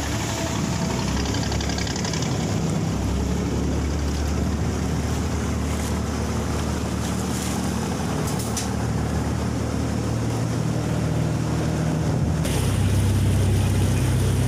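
Motorised sampan's engine running steadily under way, with water rushing past the hull; the engine hum grows louder near the end.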